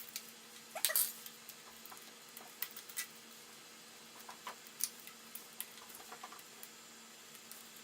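Sparse small clicks and taps of a bike U-lock's mounting bracket being handled and fitted onto an e-bike frame. A cat meows briefly about a second in.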